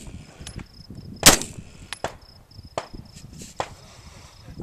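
Rock River Arms LAR-15 rifle firing one loud, sharp shot about a second in, with several fainter gunshots scattered around it.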